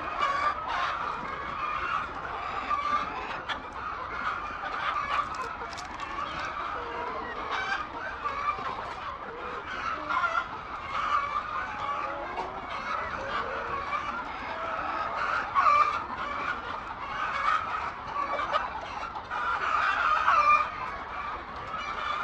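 A flock of hens clucking and calling continuously, many birds overlapping.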